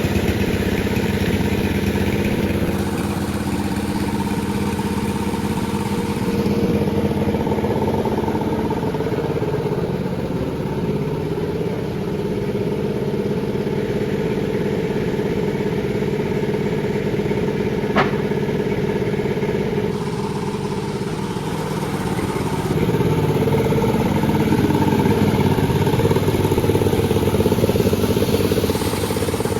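Panda36 chainsaw running steadily as it saws a durian log. It gets louder for several seconds near the end, and a single sharp click sounds about two-thirds of the way through.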